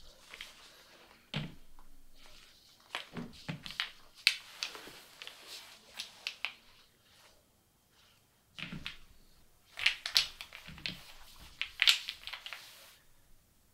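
Wooden Jenga blocks clicking and knocking as they are tapped, nudged and slid out of a stacked tower, in irregular small clicks with a few duller knocks.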